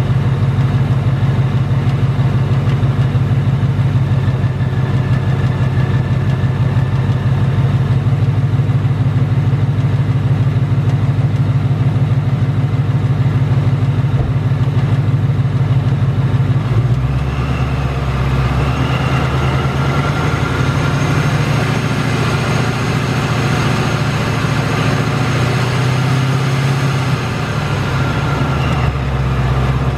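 Supercharged Ford Mustang GT 5.0 Coyote V8 idling, with the ticking, typewriter-like 'BBQ tick' that the owner hears from the bottom end and that is common on 2018–2019 cars. Its note changes a little past halfway, with a higher whine coming in.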